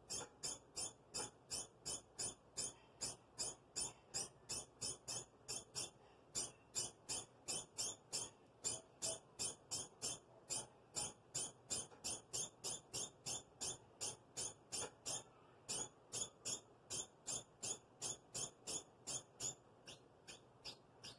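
Pet degu calling over and over: a steady series of short, high squeaks, about two or three a second. There is a short pause about six seconds in, and the calls grow weaker near the end.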